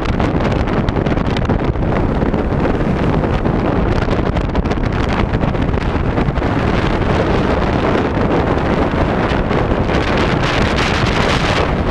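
Strong, gusty wind buffeting the microphone: the back-side winds still blowing after a typhoon has passed.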